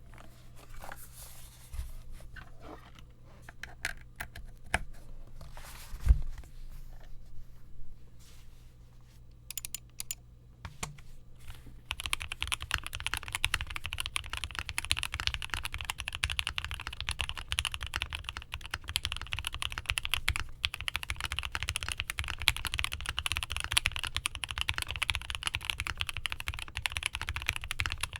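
Piggy 60 mechanical keyboard with lubed and filmed Lavender linear switches in a polycarbonate plate and GMK keycaps: a few scattered key presses and one louder knock, then about halfway through, continuous fast typing.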